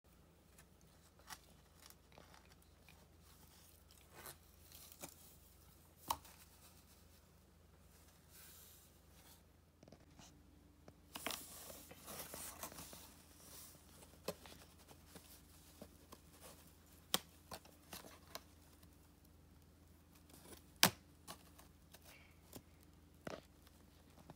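Faint rustling and scraping of cardboard against a cat's fur, with scattered sharp taps and clicks. About eleven seconds in comes a longer scraping stretch lasting a couple of seconds, and the sharpest tap comes about twenty-one seconds in.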